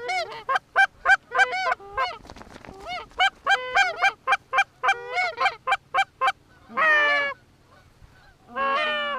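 Canada goose honking: a quick run of short honks, about three a second, then two longer drawn-out honks near the end.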